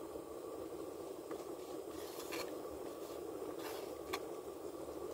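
A plastic fork scraping and tapping against a takeout food container a few times, over a steady hum inside a car.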